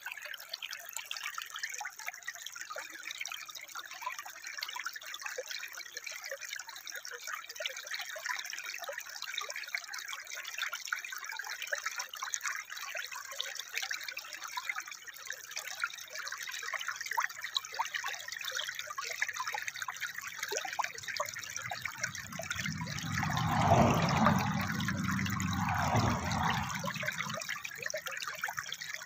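Shallow stream trickling and splashing over stones and down a small rocky cascade, steady throughout. Near the end a louder, deeper rush lasts a few seconds.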